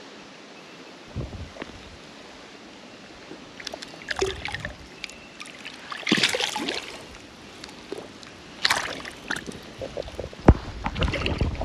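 Water splashing and sloshing in shallow creek water around a Murray cod held on lip grips as it is released, in several irregular splashes, with a sharp knock near the end.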